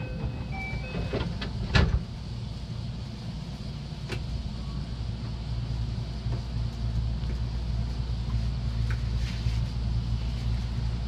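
Steady low hum of an electric local train standing at a station, heard from behind the driver's cab, with a sharp clunk just under two seconds in and a lighter click about two seconds later.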